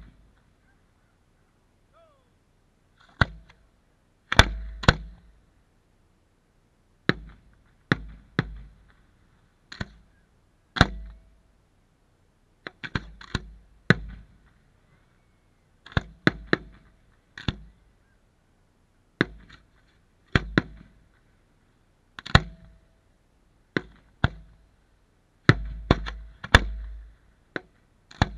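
Aerial fireworks going off: a string of sharp bangs, roughly one a second with some in quick pairs, each trailing off briefly.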